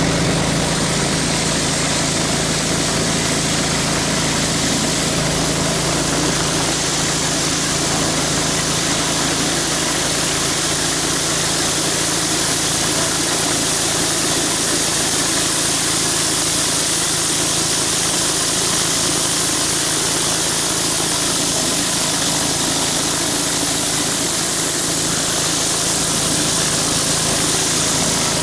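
Pressure washer engine running steadily, with the hiss of high-pressure water spraying from a rotary surface cleaner onto concrete.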